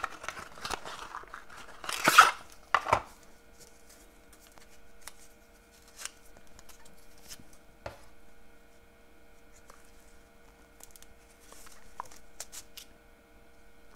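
Handling noises of paper crafting: a Glue Dots dispenser box and a ribbon bow picked up and set down on a craft mat, with a sharp rustle about two seconds in, another soon after, then a few light taps.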